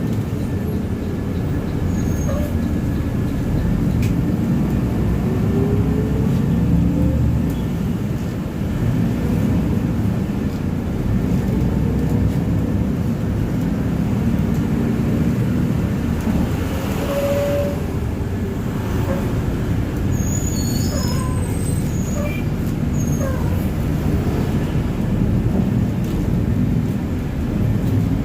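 Steady low rumble of city traffic and bus engines, with an engine note rising briefly a few seconds in and a few short high squeaks about two-thirds of the way through.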